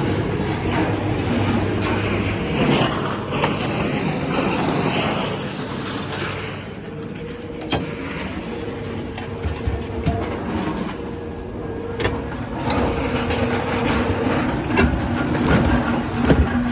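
A large engine running steadily, with a few sharp knocks about eight and twelve seconds in.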